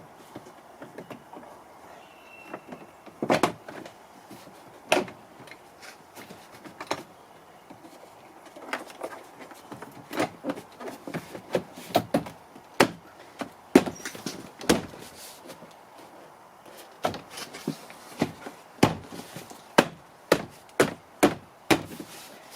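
Ford Fusion driver's door trim panel being pushed and struck onto the door: a series of sharp knocks and thumps, a few at first and then a quicker run of them in the second half.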